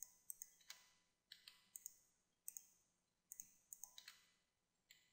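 Faint clicking of a computer mouse and keys, mostly in quick pairs, several each second, as mesh edges are picked and deleted.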